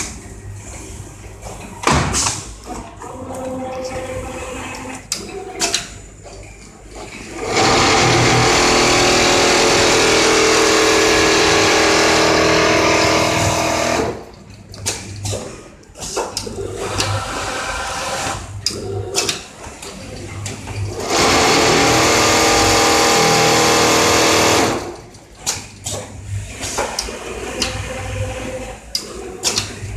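Richpeace automatic template sewing machine with auto loader at work: two loud, steady runs of machine stitching, the first about six seconds long and the second about three, with quieter stretches of mechanical clicks and knocks between them.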